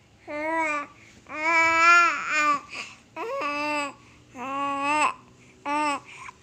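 A three-month-old baby babbling: about five drawn-out, vowel-like sounds whose pitch bends up and down, the longest lasting about a second, with short pauses between.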